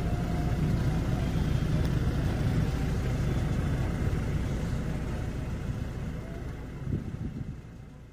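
Road and engine noise heard inside a moving car: a steady rumble that slowly fades toward the end.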